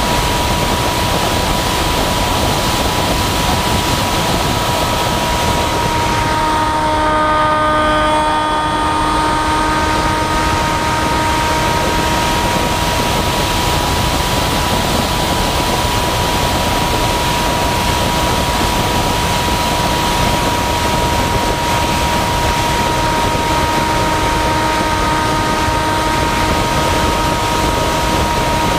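Model flying wing in flight, heard from on board: a steady motor-and-propeller whine over a constant rush of wind noise, with extra overtones in the whine briefly about seven to nine seconds in.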